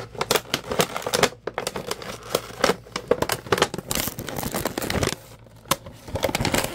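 A sealed toy package being pulled and torn open by hand, fingers worked in through a hole in it: irregular crackling, crinkling and tearing, with a short lull about five seconds in.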